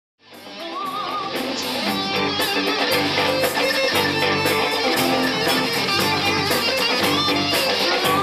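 Music with guitar and a steady beat, fading in over the first second or two.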